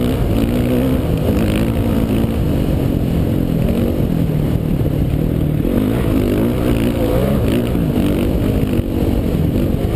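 Dirt bike engine heard from a camera mounted on the bike, its pitch rising and falling as the rider works the throttle at race speed.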